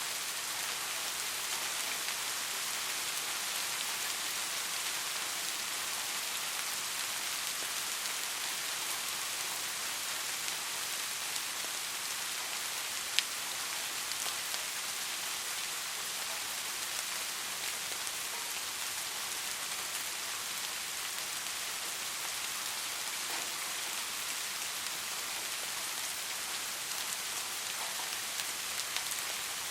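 Steady soft rain: an even hiss of many fine drops. One louder drop-like tick stands out about halfway through, and a few smaller ones come near the end.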